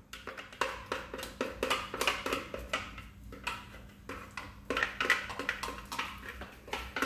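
A spatula scraping and tapping against a food processor bowl, knocking the last of a thick batter out into a mixing bowl: a run of irregular knocks and scrapes, a few a second.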